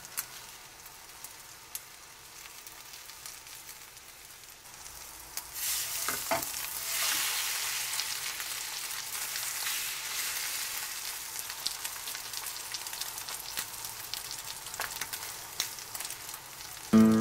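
Green onion omelet frying in bubbling fat in a nonstick pan: a soft sizzle that grows louder about five seconds in, with a few faint clicks.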